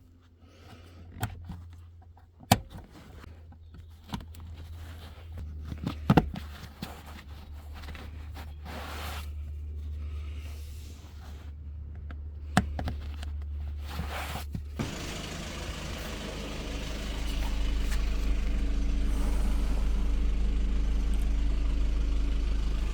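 Sharp clicks and knocks of work inside a car cabin over a low hum. About two-thirds of the way in, the Golf GTD's 2.0-litre diesel engine comes on and runs steadily at idle.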